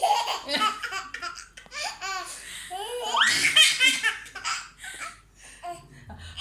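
Young children laughing in high-pitched bouts of quick repeated pulses, fading near the end.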